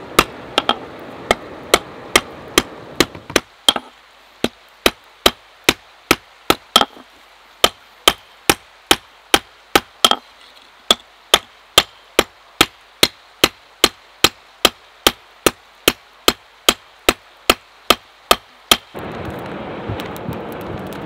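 Blacksmith's hand hammer striking hot mild steel on a small block anvil: a steady run of sharp metallic blows, about two and a half a second. Near the end the blows stop and give way to a steady rushing noise with faint crackles.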